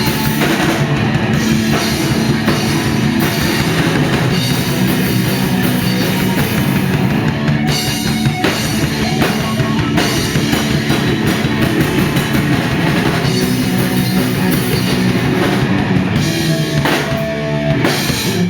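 Punk rock band playing loud, with a pounding drum kit driving the sound; an instrumental stretch with no singing.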